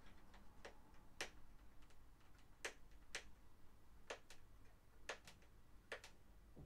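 Faint, irregular clicks and taps of a small cardboard earbuds box being turned over in the hands, fingers and nails knocking against its sides and edges while looking for a way to open it.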